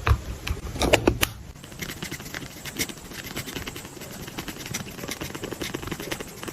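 Paper and stickers being handled while assembling a journal page: a couple of sharp taps about a second in, then a steady run of small crackles and ticks.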